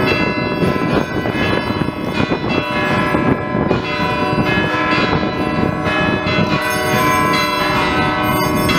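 Church bells ringing, several bells of different pitches sounding over one another without pause.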